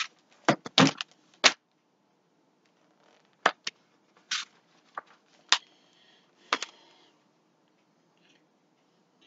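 A hardcover picture book being handled and set down: a string of sharp knocks, taps and short rustles of cover and pages, loudest in the first couple of seconds, then scattered knocks until about seven seconds in.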